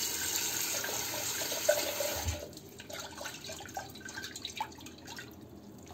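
A kitchen tap runs into a stainless steel teapot for about two and a half seconds, then stops. After that the rinse water splashes and drips as the pot is swirled over the sink.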